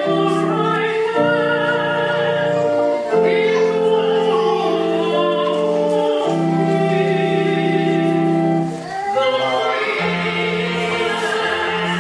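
Church singing with long held notes that change every one to three seconds, with a brief dip just before the last phrase.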